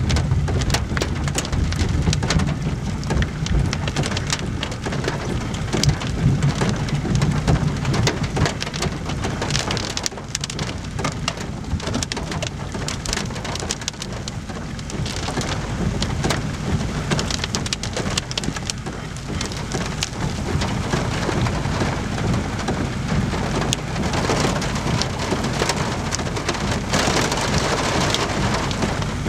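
Steady rain with dense, irregular drop hits throughout, during a thunderstorm. A low rumble sits under it for roughly the first ten seconds and then eases.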